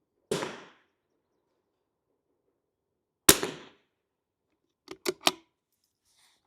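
.22 LR rimfire rifle shots: a quieter crack shortly after the start and a much louder, sharp crack a little past three seconds in, each with a short tail. About a second and a half later come three quick clicks.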